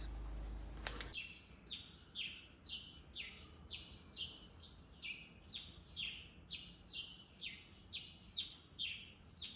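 A bird calling over and over: short chirps that fall in pitch, about two or three a second, starting about a second in.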